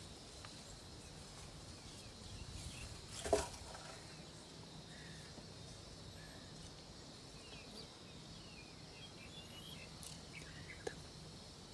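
Faint rural ambience: a steady high insect hum with scattered short bird chirps. A single sharp knock about three seconds in is the loudest sound, with a smaller click near the end.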